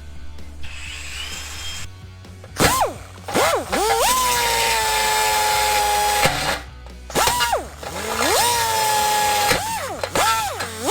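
Handheld power tool motor, drill-like, triggered in a string of bursts: several short blips, each spinning up to speed, and two longer runs of a second or two that hold a steady whine and sag slightly in pitch before cutting off.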